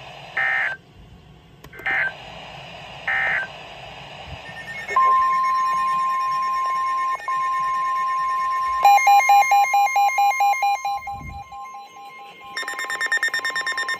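NOAA Weather Radio receivers picking up a new severe thunderstorm warning: three short screechy SAME data bursts about a second and a half apart, then a steady single-pitch warning alert tone from about five seconds in. The radios' own alarms join in as pulsing electronic beeps about nine seconds in, and a second, faster beeping starts near the end.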